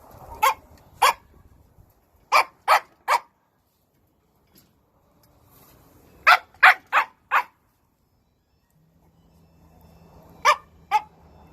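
Shiba Inu dog barking in short, sharp bursts: two barks, then three, then a pause, then four quick barks, and near the end two more.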